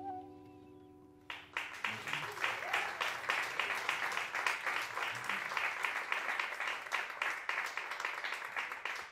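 The last flute-and-guitar note of a choro piece dies away, then about a second in the audience breaks into steady applause.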